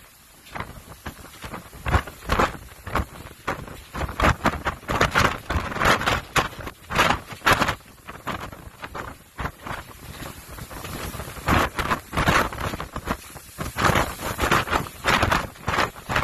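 Storm wind gusting across a cruise ship balcony and buffeting the phone's microphone in irregular surges, over the rushing of rough, breaking sea.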